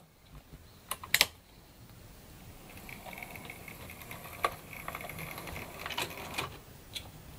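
OO-gauge model GWR Large Prairie tank locomotive running slowly, its small electric motor whirring faintly and growing louder, with its wheels clicking over rail joints and pointwork. Two sharp clicks sound about a second in.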